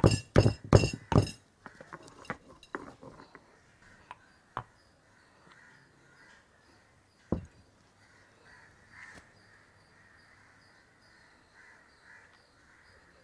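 A bird, a crow by its cawing, gives a quick run of loud, harsh calls at the start, about three a second. After that come a few light knocks and one louder thud about seven seconds in, with quiet between.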